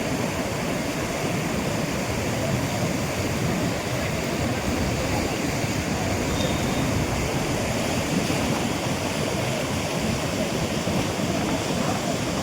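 Floodwater of the swollen Godavari River rushing past: a steady, even noise of fast-moving water.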